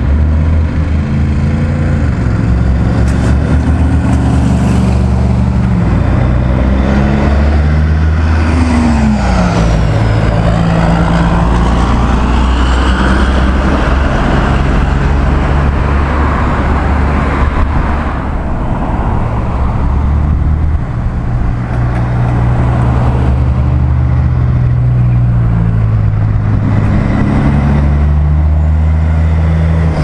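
Road traffic passing close by: car, van and truck engines running and changing pitch, over a steady rush of tyre and road noise. About nine seconds in, one passing vehicle's pitch falls as it goes by.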